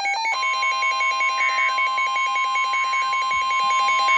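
Emergency Alert System broadcast tones on NOAA Weather Radio: buzzy, rapidly alternating digital header tones, joined about a third of a second in by the steady 1050 Hz weather radio warning alarm tone. Together they mark the start of a new warning.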